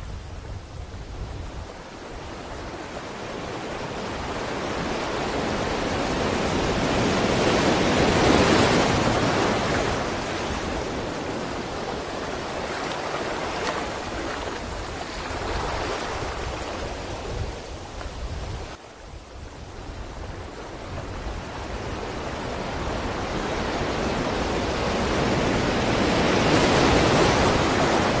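Sea waves washing ashore in a continuous hiss of surf. One swell builds to a peak about a third of the way in, falls off sharply about two thirds in, and a second swell builds again near the end.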